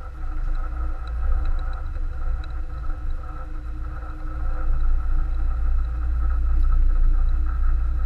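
Car driving slowly on an ice-covered road, heard from inside the cabin: a steady low rumble of engine and tyres that grows a little louder in the second half.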